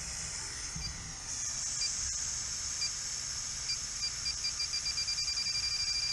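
Electronic refrigerant gas detector beeping over a steady hiss of nitrogen being bled from a refrigeration system. The beeps quicken until they run almost together near the end, as the detector picks up residual propane (R290) refrigerant mixed in the nitrogen.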